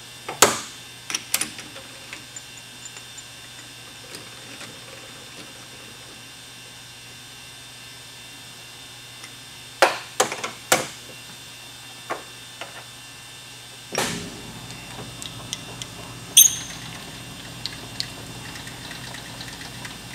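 Sharp metal clanks and knocks as tooling on a metal lathe is handled and changed over. About fourteen seconds in, a steady low machine hum starts up and keeps running.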